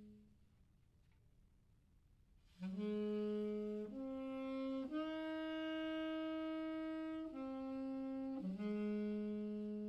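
Saxophone playing a slow, plain phrase. After a note dies away and a pause of about two seconds, a low note is scooped up into from below. The line steps up twice to a long held note, then steps back down to the low note and holds it.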